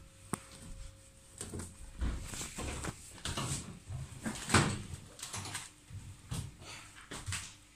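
A cloth wiping and rubbing over a hard, glossy cabinet surface: irregular swishing strokes with light knocks and bumps, the loudest knock about four and a half seconds in.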